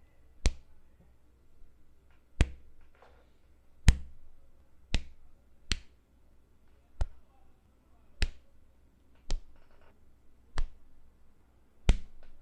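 A series of punch sound effects: about ten sharp smacks, one to two seconds apart, over a faint low hum.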